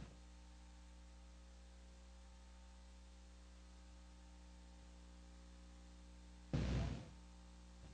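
Faint steady electrical hum with light hiss. About six and a half seconds in, one sudden loud burst of noise lasts about half a second and dies away.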